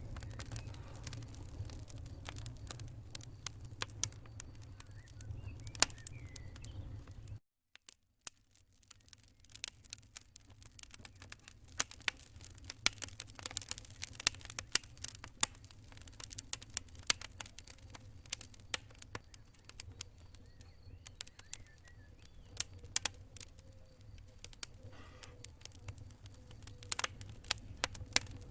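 Wood fire crackling in a fireplace: irregular sharp pops and snaps over a low rumble. A little over seven seconds in, the sound cuts out for a moment, then fades back in.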